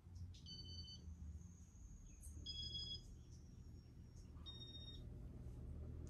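Electronic control of a Casablanca Stealth ceiling fan beeping: three short two-tone beeps about two seconds apart, each a little higher in pitch than the one before. A faint low hum runs underneath.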